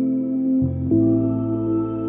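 Background music: a slow ambient piece of sustained held chords, the harmony shifting about half a second in and again about a second in.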